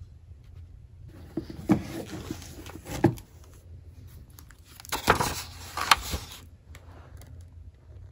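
Hardcover books being handled and opened: rustles and knocks, with a few sharp louder ones about two, three, five and six seconds in.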